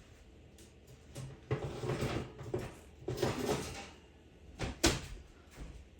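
Kitchen handling sounds as a pan of roasted asparagus is taken out of the oven: an oven door opening, scraping and rustling as the pan comes out, then a couple of sharp knocks about five seconds in.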